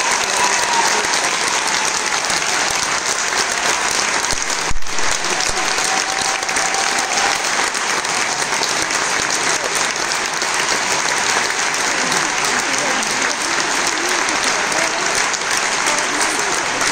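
Large audience applauding steadily, a dense even clapping. A single thump about five seconds in.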